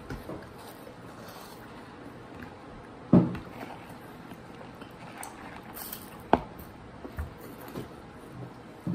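Quiet crunching and chewing of Hot Cheetos Puffs and Takis, with hands picking through the snacks in the bowls. Two sharp clicks stand out, one about three seconds in and one about six seconds in.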